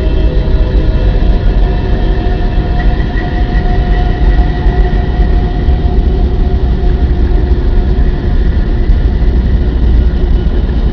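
The 'sound of Earth' from space: electromagnetic signals converted to audio. It is a loud, continuous low drone with faint steady tones held above it.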